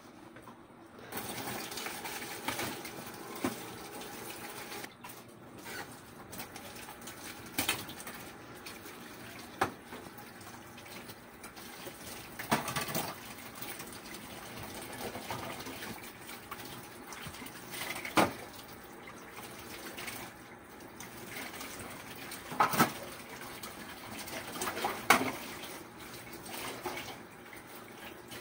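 Tap water running into a stainless steel sink while dishes are washed and rinsed, with scattered sharp clinks of plates and a metal basin knocking together. The water starts about a second in.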